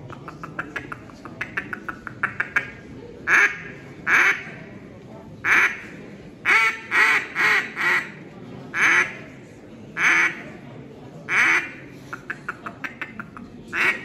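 Hand-blown waterfowl game call sounding a duck-like calling sequence: a quick run of short notes at the start, then single longer calls and short groups spaced about a second apart, and another fast run near the end.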